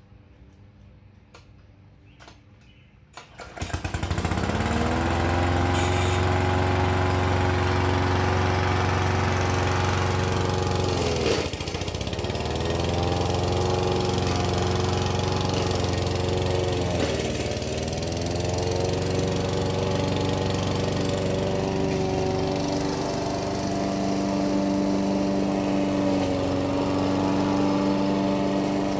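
Weed Eater mower's small engine firing up about three seconds in after a few faint clicks, quickly revving up and then running steadily. Its speed sags briefly twice and picks back up.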